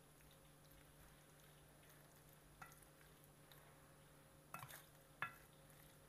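Near silence, with a few faint, brief clicks and squelches from a hand mixing sliced pork belly in a wet seasoned coating in a stainless steel bowl.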